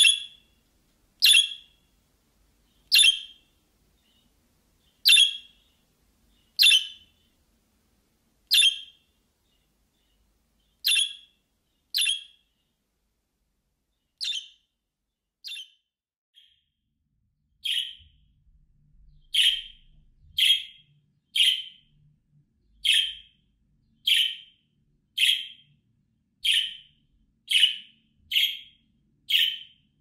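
Budgerigar giving short, sharp single chirps one after another, at first every second or two, then coming faster, about one a second, in the second half.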